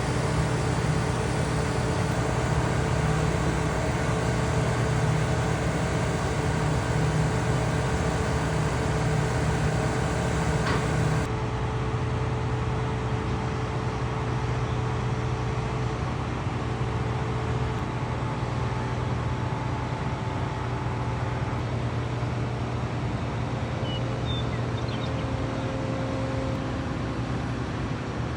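A large diesel engine running steadily, in a low hum. Its sound changes abruptly about eleven seconds in, losing its upper hiss, and then carries on.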